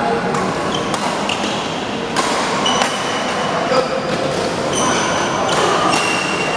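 Badminton doubles rally: sharp racket hits on the shuttlecock every second or two, with short high squeaks of shoes on the court, echoing in a large hall.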